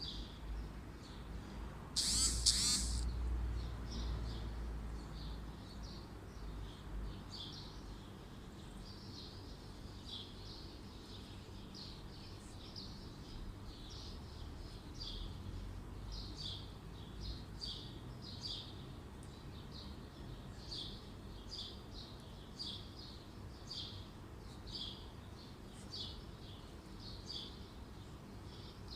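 A small bird chirping over and over, short high calls about once or twice a second, with a brief loud hiss about two seconds in.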